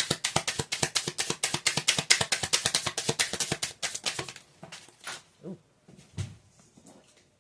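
A tarot deck being shuffled by hand: a rapid run of card flicks, stopping about four seconds in, followed by a few soft handling sounds of the cards.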